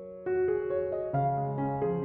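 Background piano music: gentle single notes struck every fraction of a second, each fading away into the next.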